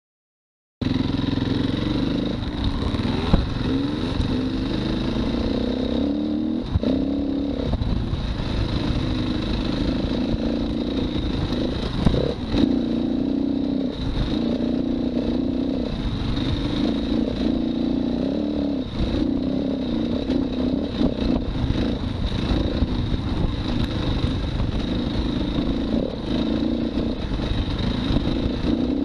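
Dirt bike engine running close to the microphone, revving up and falling back over and over as it is ridden along a rough trail, with rattles and sharp knocks from the bike over bumps. The sound starts abruptly about a second in.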